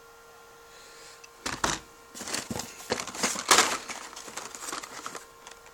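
Carded Hot Wheels cars in plastic blister packs being handled out of the shipping case, the packaging crinkling and clicking in irregular bursts from about a second and a half in until about five seconds in.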